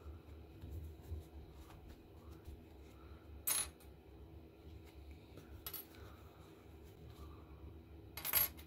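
Small metal parts of a gun lighter being set down one by one on a hard work surface: three sharp metallic clinks about two and a half seconds apart, the first and last the loudest with a brief ring.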